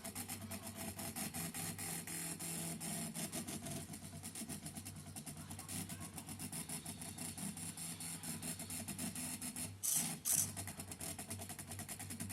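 Small stepper motors from DVD drives buzzing and ticking in rapid steps as a mini CNC pen plotter moves through a drawing, the level pulsing as the moves change. Two short, louder bursts of hiss come about ten seconds in.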